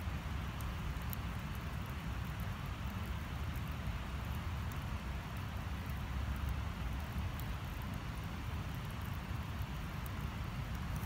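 Campfire burning with faint, scattered crackles over a steady low rumble.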